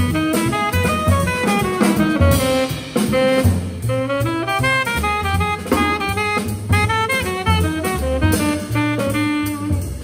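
Live jazz trio: a tenor saxophone plays a quick line of short notes over plucked double bass and a drum kit with cymbals.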